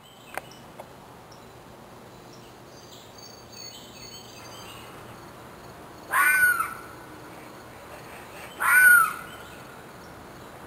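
Two loud, harsh animal calls, each about half a second long and arching up and down in pitch, about two and a half seconds apart, over faint forest background with small bird chirps.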